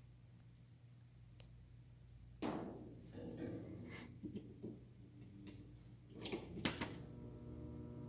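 Low steady hum with a few sudden knocks and thuds, the loudest about two and a half seconds in and another sharp one near the end.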